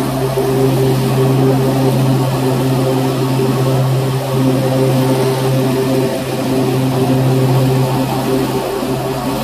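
Engine of an Exmark 48-inch Turf Tracer walk-behind mower running steadily while mowing grass, with an even, unbroken hum.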